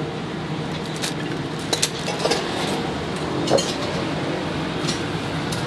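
Metal tongs clicking and clinking against a stainless wire rack as egg cakes are lifted, several short sharp clicks at irregular times, the loudest about three and a half seconds in, over a steady background hum.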